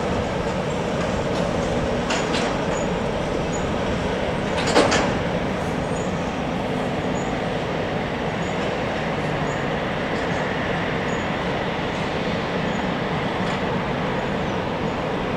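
Twin-engine Airbus A320-family jet airliner taxiing, its engines running steadily at low power. One brief sharp knock about five seconds in.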